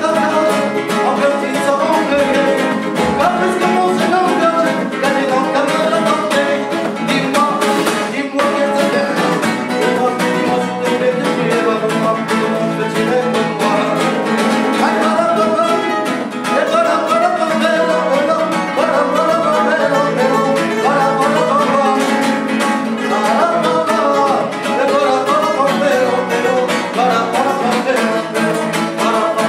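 Two nylon-string acoustic guitars playing together in a Spanish, flamenco-style duet, with strummed chords and quick melodic picking running without a break.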